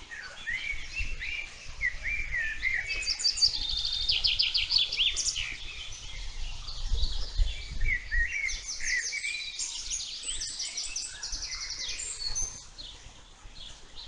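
Several songbirds singing at once: quick chirps and fast trills of short, rising notes, overlapping. The song is busiest in two long stretches, the second starting about halfway through.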